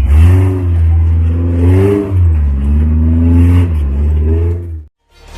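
Off-road jeep's engine revving, its pitch rising and falling several times, then cutting off abruptly near the end.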